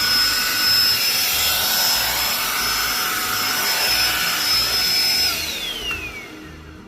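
Roidmi X20 cordless stick vacuum running with a steady high motor whine and rushing air, then switched off a little after five seconds in, its whine falling as the motor winds down.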